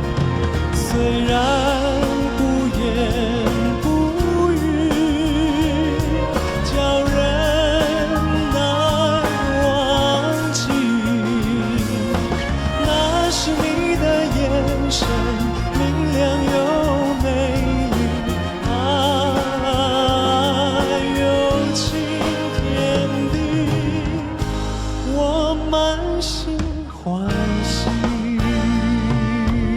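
Mandarin pop ballad music with band accompaniment carrying a melody with vibrato, which dips briefly near the end before a new section comes in.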